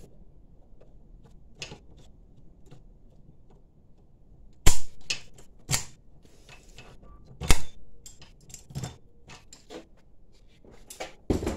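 Mole grips (locking pliers) being worked by hand, snapping shut and released: several separate sharp clicks, the loudest about five and seven and a half seconds in.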